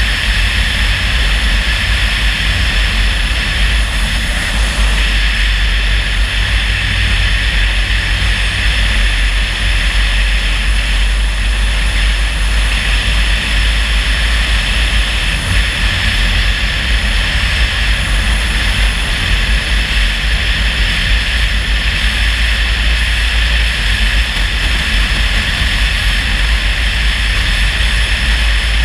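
A car driving along at steady speed: a constant low rumble with an even hiss of road and wind noise, and no change in pace.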